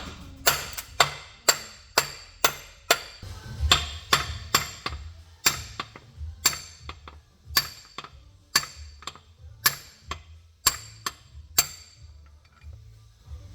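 Hammer blows on a metal part of a cast-iron Dana 300 transfer case, a steady series of sharp ringing strikes about two a second, stopping near the end. They are driving a part that the mechanic thinks was hung up on its O-ring.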